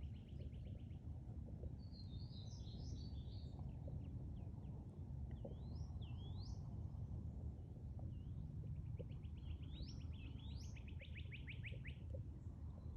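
Songbirds singing: a fast trill, a short warbled phrase, rising whistled notes and a longer fast trill building toward the end, over a steady low rumble.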